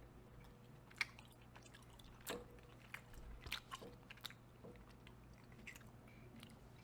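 Faint chewing of a mouthful of crackers, meat, cheese and gummy candy: scattered soft crunches and mouth clicks, a few sharper ones about a second in and around the middle.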